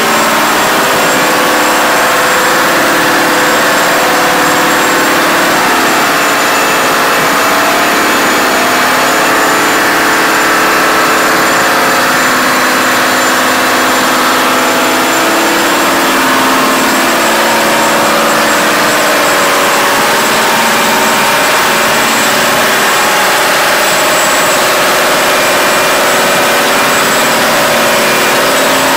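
Volvo Penta D13 inline-six marine diesel engines running steadily at a constant speed, heard loud and close inside the yacht's engine room, with a thin high whine over the engine note.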